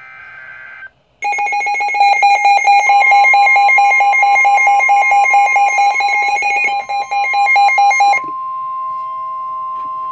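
NOAA Weather Radio's EAS alert sequence. It opens with a short warbling burst of SAME digital data, the encoded header of the next warning. A second in, a loud, rapidly pulsing electronic alarm starts, with the steady 1050 Hz weather-radio warning tone joining under it. The pulsing alarm cuts off about eight seconds in, leaving the steady 1050 Hz tone.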